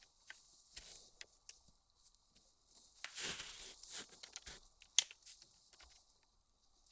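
Irregular crunching and rustling in short clusters, busiest about three seconds in, with one sharp crack about five seconds in.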